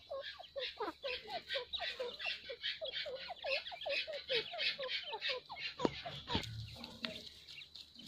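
Grey francolins calling: a rapid run of short notes, about four a second, that thins out after about five seconds. A few sharp knocks follow near the end.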